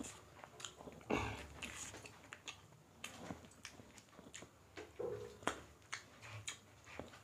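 Two people eating rice and chicken curry with their hands: faint chewing and mouth noises with scattered small clicks of fingers and food on the plates, and two sharper knocks, one about a second in and one about five and a half seconds in.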